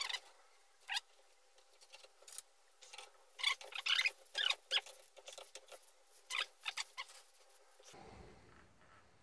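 Short, high-pitched metal squeaks in bursts as a wrench is worked on the pinion of a Suzuki Carry front differential during pinion bearing removal: one about a second in, a run of them from about three to five seconds, and a few more near seven seconds.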